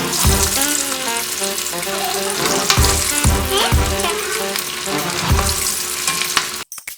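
Background music with held melody notes, a hissing top end and a beat of deep drum thumps, cutting off suddenly near the end.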